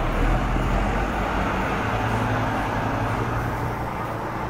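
Motorhome engine running at low speed as it rolls slowly across the lot, a steady low hum.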